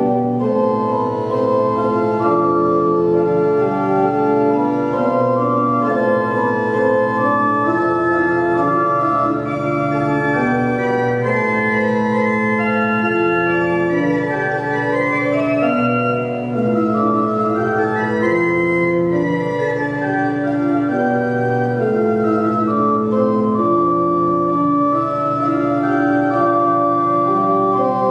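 Church pipe organ playing a slow piece in full held chords, the notes changing every second or so over a moving bass, at an even volume.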